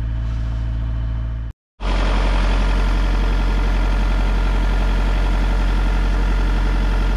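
Peugeot 407's 2.0 HDi four-cylinder diesel engine running steadily at a fast idle, held at about 1500 rpm to bring it up to temperature so the thermostat opens and air bleeds from the cooling system. The sound breaks off completely for a moment about one and a half seconds in, then comes back louder.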